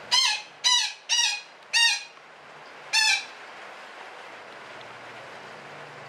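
Betet parakeet giving five loud, harsh squawks, four in quick succession and a fifth about a second later.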